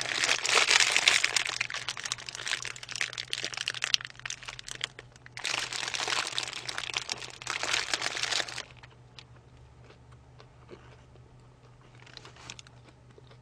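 A paper burger wrapper crinkling and rustling close to the microphone as the burger is handled, in two long stretches. The second stretch stops about two-thirds of the way through, leaving only faint small ticks.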